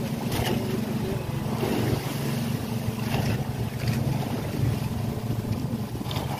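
A boat engine running steadily with a low hum, under wind and sea noise, with a few sharp slaps of waves against the hull and bamboo outrigger.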